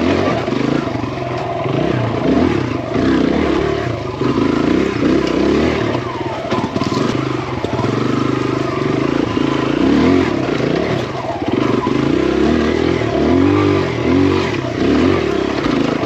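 Kawasaki KLX dirt bike's single-cylinder four-stroke engine revving up and falling back over and over as the throttle is worked on a rough trail, with clattering from the bike.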